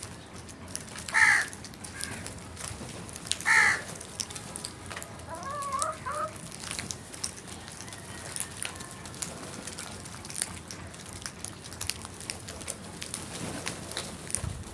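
Crows cawing: two loud harsh caws, about a second and three and a half seconds in, then a softer wavering call, with scattered light clicks and taps after that.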